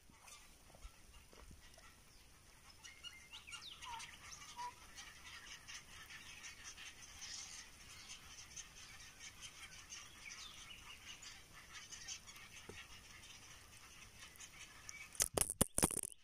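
Faint bird calls throughout. About a second before the end come several loud, sharp knocks as the camera on its tripod is bumped.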